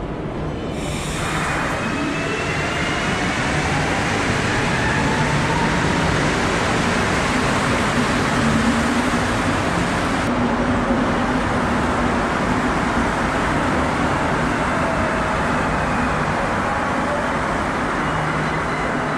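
Rubber-tyred Montreal Metro trains in the station, with a steady loud rumble throughout. Early on a train pulls out, its motor whine rising. In the later part an Azur train comes in, its whine falling as it slows to a stop.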